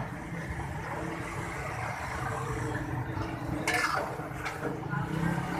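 Small gram-flour phulkiyan frying in a wide metal karahi of hot oil, a steady sizzle over a low rumble. A long perforated metal skimmer stirs and lifts the batch, clanking sharply against the pan twice near the end.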